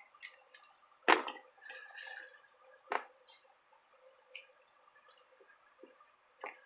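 Hands handling a plastic toy and its packaging: a sharp click about a second in, another just before three seconds, and a few smaller taps and faint handling noises between.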